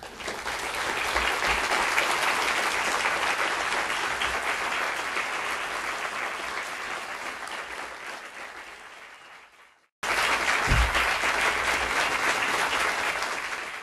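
Audience applauding at the close of a talk, swelling over the first couple of seconds and then slowly thinning. It cuts out abruptly about ten seconds in and comes straight back at full strength, with a few low thumps underneath.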